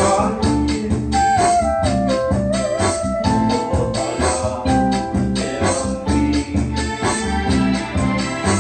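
Keyboard music with a steady beat and held organ-like chords; a melody line steps down in pitch between about one and three seconds in.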